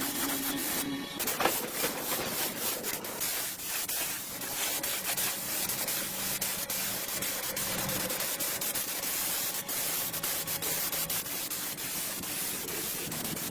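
Sanding a part by hand: steady scratchy rubbing with many small scrapes.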